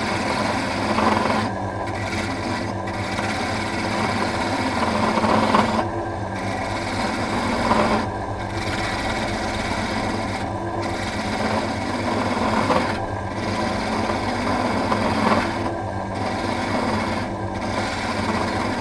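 Small electric motor driving an improvised pen lathe while a hand-held turning tool cuts a spinning walnut blank: a steady motor hum under a scraping, shaving noise that breaks off briefly every couple of seconds. The blank is being roughed down.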